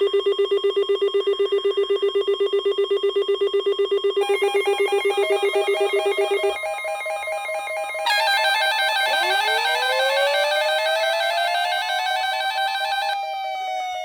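Several weather alert radios sounding their alarms together: rapid pulsing electronic beeps in several pitches, layered and starting and stopping at different times, signalling an incoming weather alert. About nine seconds in, a siren winds up and holds, then slowly falls near the end.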